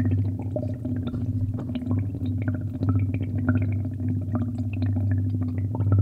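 Computer keyboard keystrokes and mouse clicks, several a second and irregular, over a steady low electrical hum.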